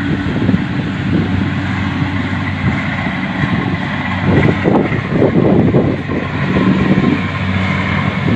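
An engine runs steadily with a low hum, and a louder irregular clatter comes through for a couple of seconds in the middle.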